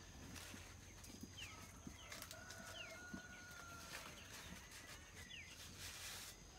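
Faint farmyard chickens: several short falling peeps, and one long, even call lasting about a second and a half from about two seconds in. Faint clicks from dry tobacco leaves being handled.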